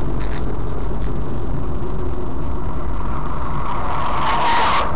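Steady low rumble of a car on the move, with a brief louder rushing noise about four seconds in that cuts off abruptly.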